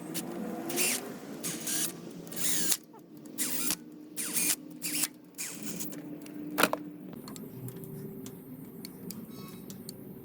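Hand tools working on an LS V8's valvetrain while the rocker arms are bolted down: about eight short noisy strokes in the first seven seconds, then fainter scattered clicks.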